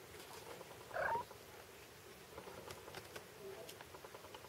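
A kitten gives one short, high mew about a second in, over light scratching and scuffling from kittens tussling.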